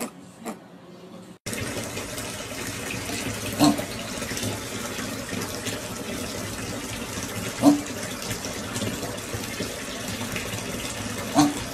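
Water running steadily into a bathtub with a continuous rush. A few short pitched sounds rise over it, roughly every four seconds.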